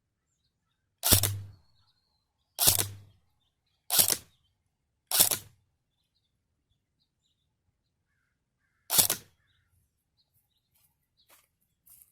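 Airsoft rifle fired five times on semi-auto, each shot a sharp crack with a short decay. Four shots come about one to one and a half seconds apart, then a fifth follows after a pause of nearly four seconds.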